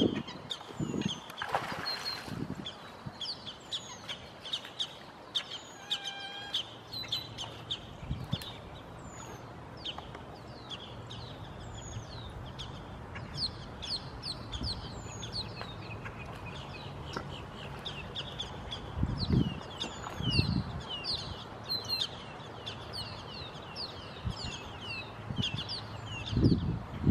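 An alligator thrashing in shallow water with a turtle in its jaws, making heavy splashes at the start, twice about two-thirds of the way through and again near the end. Birds chirp steadily throughout with many short, high, falling calls.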